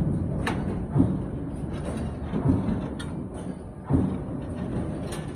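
Automatic CNC pipe clamp punching and bending machine running, with a low thud about every one and a half seconds and a few sharp clicks in between.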